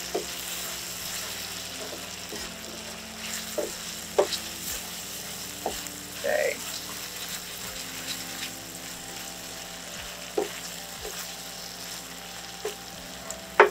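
Diced celery and onion sizzling steadily in melted butter in a stainless steel skillet, stirred with a wooden spoon that scrapes and knocks against the pan now and then.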